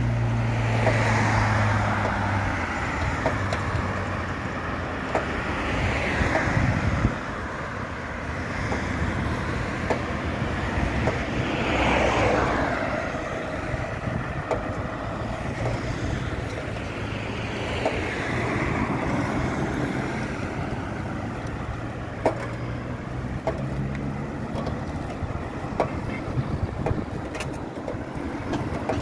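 Road traffic noise during a car drive along a major city road: a steady rush of tyres and engines, with a low engine hum at times and several vehicles swelling up and fading as they pass.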